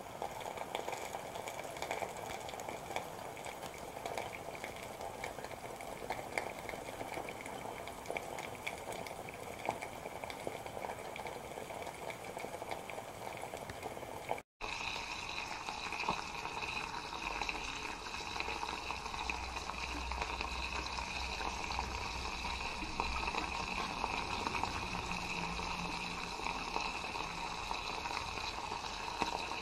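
Water heating to a boil in a small covered pan over a burning alcohol stove: a steady bubbling hiss, broken off once for a moment about halfway through.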